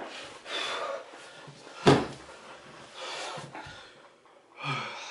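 A person snoring with their head down on a table: two breathy snores a few seconds apart, with a single sharp thump just before the two-second mark.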